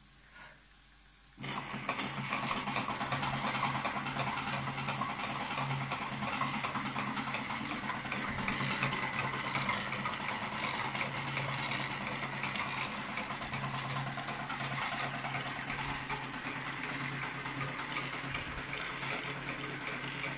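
1919 Märklin 4135 toy steam engine running with its belt-driven model workshop tools: a steady hissing, whirring noise that comes in abruptly about a second and a half in. The piston is unoiled, so the engine runs below its proper speed.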